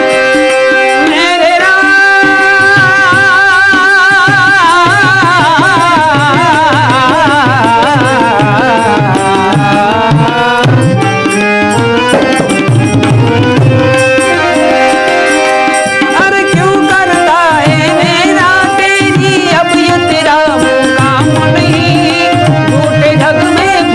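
Instrumental interlude of a Hindi devotional dhun: tabla keeps a steady rhythm under sustained harmonium notes, with a melody line that wavers and slides in pitch through much of the first half.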